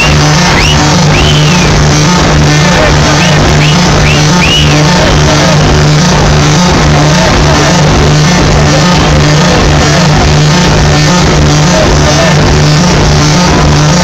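A live rock band plays very loudly over an arena PA, with a steady pulsing low bass note throughout. The crowd shouts, and several short high whistles come in the first few seconds.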